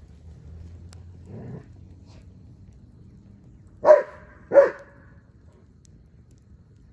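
German Shepherd barking twice in quick succession, two short loud barks less than a second apart.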